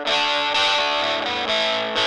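Electric guitar music played through distortion and effects, with held notes changing every half second or so.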